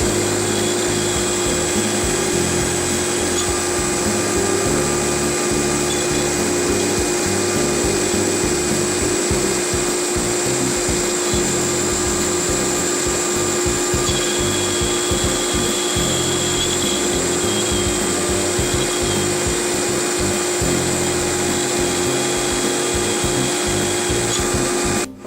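CNC router spindle running steadily while it carves wood, with a constant high whine.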